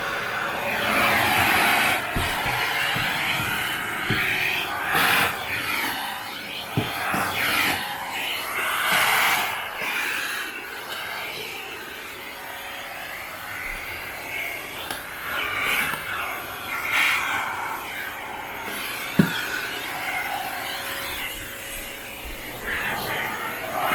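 Panasonic paper-bag canister vacuum running with its crevice nozzle: a steady motor hum under an airflow rush that rises and falls as the nozzle is worked into corners and along the floor. A few sharp knocks come from the nozzle hitting the floor or baseboard, the loudest about two-thirds of the way through.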